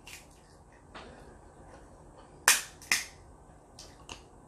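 Cooked shellfish shell being cracked and peeled apart by hand: two sharp snaps about half a second apart just past the middle, with a few faint clicks around them.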